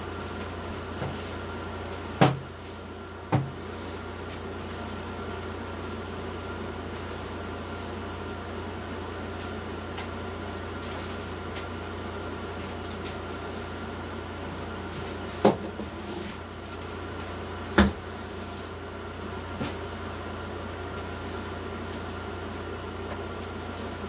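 Broom sweeping a camper floor, with four sharp knocks, two near the start and two in the second half, over the steady hum of a small air conditioner.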